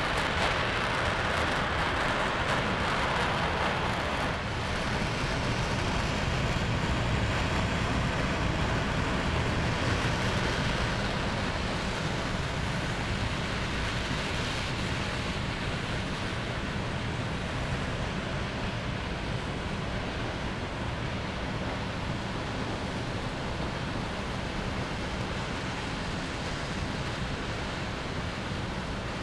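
Steady rushing hiss of vapour venting at an industrial plant, a little louder in the first ten seconds.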